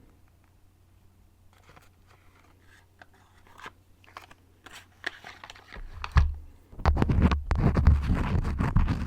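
Crayons scratching and rubbing: faint, scattered strokes at first, then loud, dense scratching with a heavy rumble from about seven seconds in.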